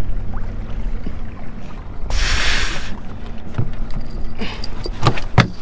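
Panga's outboard motor idling steadily, with a short burst of hiss about two seconds in.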